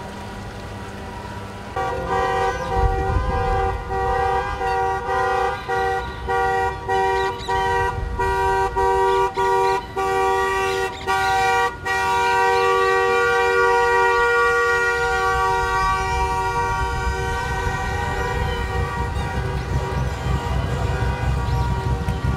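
Vehicle horns sounding a chord of two pitches over the rumble of traffic. A string of short honks, a little more than one a second, starts about two seconds in. About halfway through they turn into one long held blast that slowly fades.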